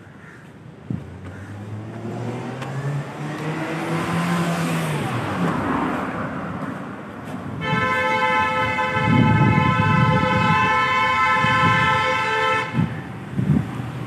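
A road vehicle passes close by, its engine rising and then falling away. About halfway through, a horn sounds one long, steady blast of about five seconds over the traffic rumble.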